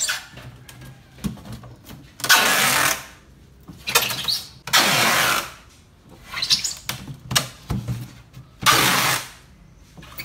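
Packaging tape being pulled off the roll in a series of rips as it is wound around a styrofoam box. There are three long pulls of about a second each and several shorter ones between.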